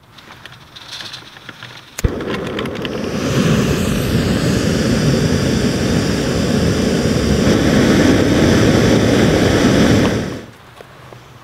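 Backpacking canister gas stove: a few light handling clicks and faint hiss, then a sharp pop about two seconds in as the burner lights, followed by the steady rushing noise of the burner flame, which cuts off near the end.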